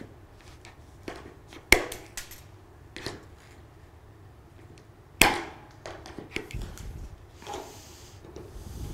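Aviation snips cutting the corner of a sheet-metal roof valley flashing to round it: a series of sharp metallic snips, the two loudest about two seconds and five seconds in.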